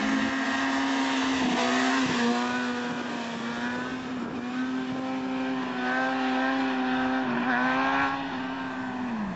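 Sportbike engine held at high revs at a steady pitch, wavering briefly a couple of times, then falling in pitch near the end as the revs drop or the bike goes past.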